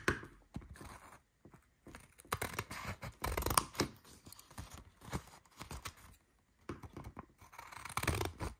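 Scissors cutting a layered pinwheel sheet of plastic, paper and vinyl in short, irregular snips, with the sheet rustling as it is handled between cuts.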